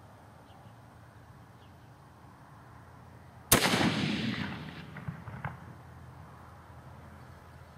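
A CVA Wolf .50-caliber muzzleloader fires once about three and a half seconds in, loaded with a PowerBelt bullet over two 60-grain Triple Seven magnum pellets. The sharp boom is followed by a rolling echo that dies away over a second or two, with two faint sharp cracks in the tail.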